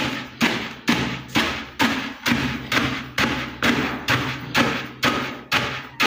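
Thick wooden pestle pounding barley grain in a plastic basin, a dull thud just over twice a second, about a dozen strokes in steady rhythm, breaking up the grains.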